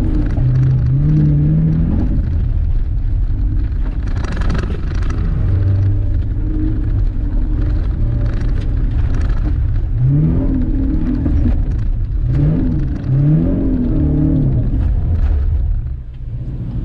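Subaru BRZ's flat-four engine revving hard and falling back again and again as the driver changes gear, heard from inside the cabin, with gravel and dirt crackling under the car. It eases off near the end.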